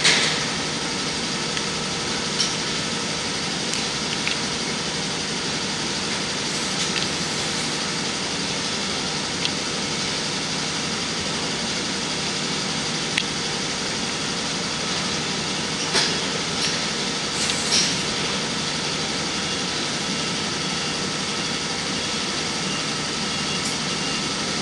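Steady machine-like background hum with a few faint clicks and knocks as the rack door's steel block-off panel and its nuts and washers are handled.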